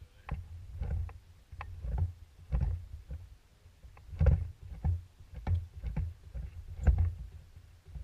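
Irregular low thumps and knocks on a bass boat's hull and deck, about one or two a second, some with a sharp click on top.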